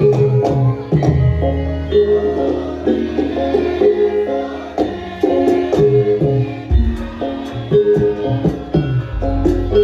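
Javanese gamelan music accompanying Lengger dance: a steady pattern of struck metal-keyed notes, with deep gong strokes ringing on, one about a second in and another near the end.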